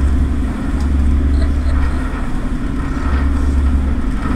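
Harbour passenger ferry's engines running steadily under way, a loud, even low drone.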